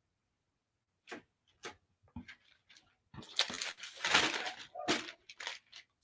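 Wax paper crinkling and rustling as it is handled and rolled around a wet paper towel: a few separate crackles at first, then denser crinkling over the last three seconds.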